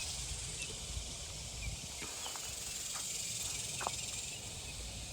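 Steady high hiss of insects with an uneven low rumble underneath. A few faint short chirps come through, the clearest near the end.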